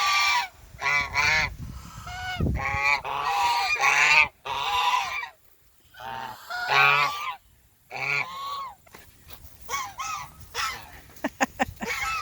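Domestic geese honking over and over, loud repeated calls with short pauses between them. A few sharp clicks come near the end.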